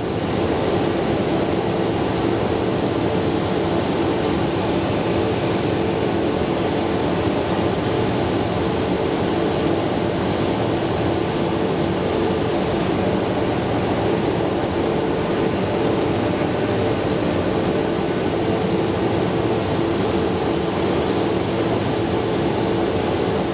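Four-flute 6 mm carbide square end mill milling a slot in SCM440 steel at 5000 rpm under flood coolant: a steady, even wash of coolant spray and machine running with a low steady hum. The cutting itself is very quiet.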